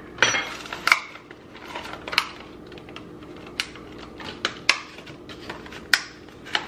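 Clear plastic clamshell container of cherry tomatoes being opened and handled: a string of short, sharp plastic clicks and light knocks at irregular intervals as tomatoes are picked out onto the counter.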